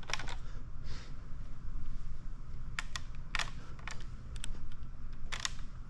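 A handful of short clicks and brief swipes as paint protection film is worked down onto plastic bumper trim, over a steady low hum.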